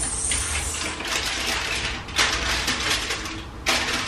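Aluminium foil crinkling and rustling in irregular stretches as pastry patties are handled on a foil-lined baking tray.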